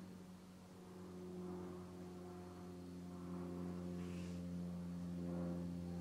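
Soft background music of sustained, droning tones that slowly swell, with a faint tick about four seconds in.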